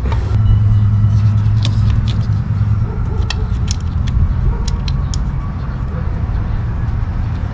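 Light clicks and taps of parts and tools being handled while fitting components in an engine bay, over a steady low hum that is loudest in the first few seconds.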